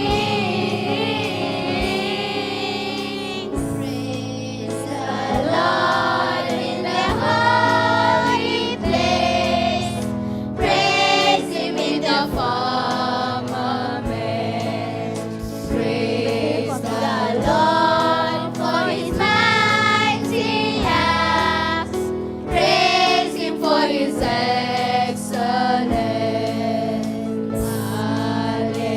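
Choir singing a praise hymn with instrumental accompaniment, held sung notes over a steady backing.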